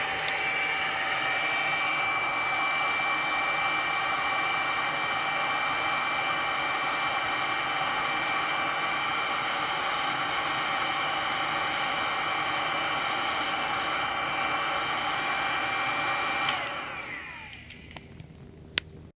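Heat gun blowing 300 °C hot air steadily with a high whine, reflowing the solder balls under a laptop's BGA graphics chip. About 16 seconds in it is switched off with a click and its fan winds down with a falling whine.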